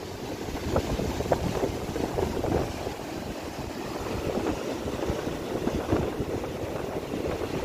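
Wind buffeting the microphone in uneven gusts of low rumble, over the wash of surf breaking on the beach.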